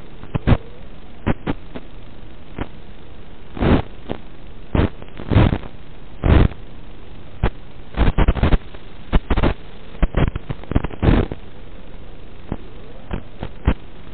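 Steady static hiss from an analog FPV video receiver's audio channel, broken by irregular loud crackles and bursts of noise as the 5.8 GHz video signal breaks up.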